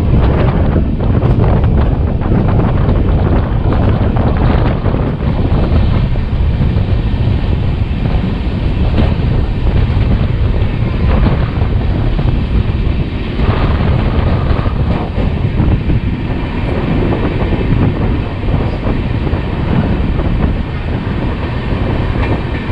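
Bhopal Shatabdi Express running at speed, with the steady rumble and rattle of its wheels on the rails and heavy wind buffeting the microphone held out of the coach door. About halfway through, a train on the adjacent track passes close alongside.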